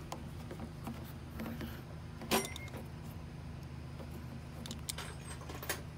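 Cloth rag rubbing and wiping around an engine's oil filter mount, with a few light metal clinks from a hand ratchet and socket, the sharpest with a short ring about two seconds in. A steady low hum lies underneath.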